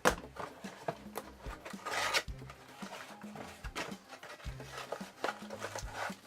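Rustling, clicks and knocks of a sealed plastic model aircraft kit being opened and unpacked by hand, with a louder rustle about two seconds in. Faint background music with a slow low note line plays underneath.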